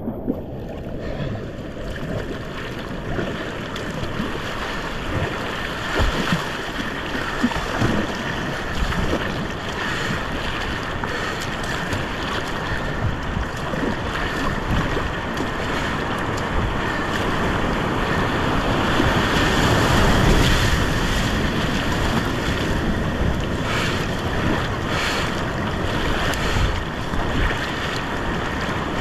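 Whitewater rapids on a steep creek rushing steadily. A few sharp knocks come around a quarter of the way in, and the rush grows louder about two-thirds of the way through.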